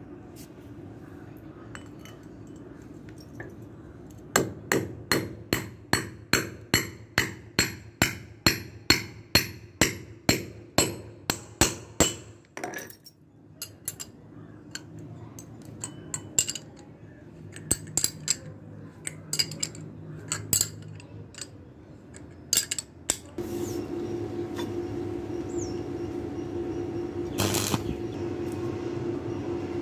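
Steady hammer blows on a steel anchor bolt set through a steel base plate, about two a second with a ringing clang, followed by quieter clicking as the nut is tightened with a ratchet spanner. A steady hum starts near the end.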